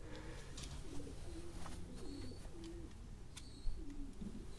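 A pigeon cooing, its low phrases repeating over and over, with short high chirps from another small bird and a few sharp clicks, the loudest about three and a half seconds in.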